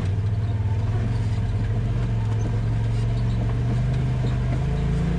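Polaris RZR side-by-side's engine running steadily under way, its pitch rising a little near the end as it picks up speed.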